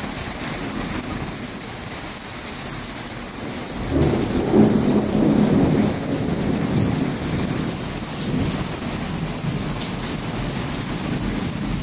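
Heavy rain pouring steadily. A rumble of thunder starts suddenly about four seconds in, peaks over the next two seconds and slowly dies away.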